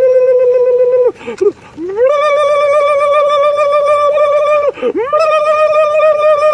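A man's voice making long, high, howl-like wails: a held note that breaks off about a second in, then two more drawn-out notes, each sliding up at the start, held steady with a slight waver, and dropping away at the end.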